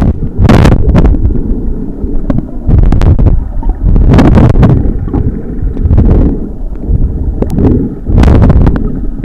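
Muffled water rumble and sloshing picked up by a camera held underwater, with several short louder bursts of splashing.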